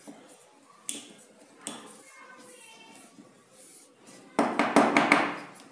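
Hard plastic parts of a laser toner cartridge clicking and knocking as the hopper section is handled and fitted together, with a few sharp clicks in the first two seconds and a louder burst of clatter about four seconds in.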